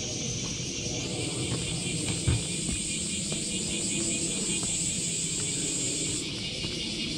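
Insects singing in a steady high-pitched whine over a low outdoor rumble. The whine steps up to a higher tone about a second in and stops about six seconds in. A single thump comes a couple of seconds in.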